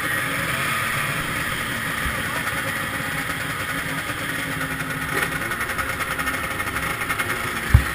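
Vintage two-stroke snowmobile engines idling, a steady running noise throughout. A loud thump near the end.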